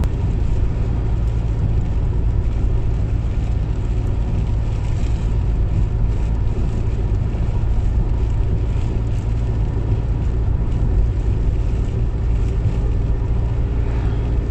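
Steady engine and tyre noise inside a moving car's cabin, driving on a wet road in the rain. The sound is a loud, even low rumble with no changes.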